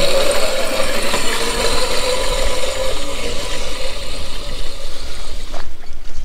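A 36-volt electric kids' ATV climbing a grassy hill at full throttle: a steady motor whine with drivetrain rattle that fades after a few seconds as it pulls away. The noise cuts off suddenly near the end.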